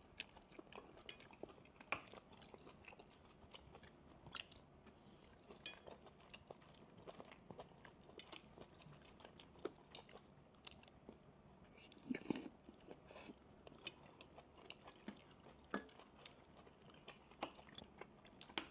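Quiet chewing while eating fried noodles, with scattered faint clicks and ticks.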